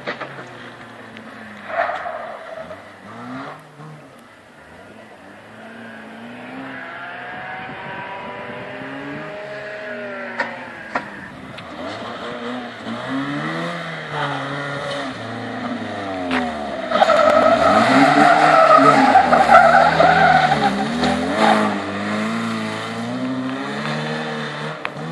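A competing car's engine revving up and falling back again and again as it is driven hard round a rallycross course, growing louder as it comes nearer. For a few seconds about two-thirds of the way in, the loudest part, its tyres squeal through a turn.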